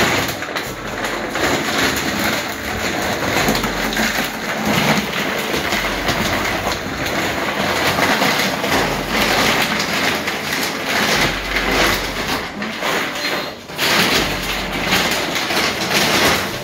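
Garden soil being poured and scooped into a plant pot: a continuous gritty rustling full of small crackles.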